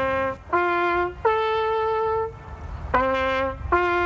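A brass bugle plays a slow call: a rising three-note phrase whose last note is held longest, then after a short pause the same phrase starts again.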